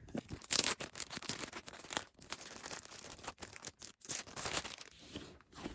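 Packaging being handled and opened by hand: a busy run of short scrapes and rustles, with a brief pause about four seconds in.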